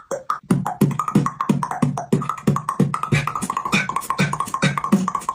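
Vocal beatboxing: a steady beat of deep kick-drum sounds, about three a second, each dropping in pitch, with sharp snare and hi-hat clicks in between.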